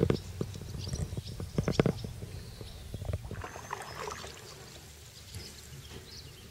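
Canoe paddling on calm floodwater: paddle strokes splashing and knocking, in clusters about every second and a half, easing off about four seconds in.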